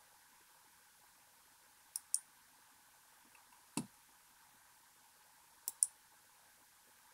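A few sharp clicks over faint hiss: two close together about two seconds in, a single fuller knock near four seconds, and another close pair near six seconds.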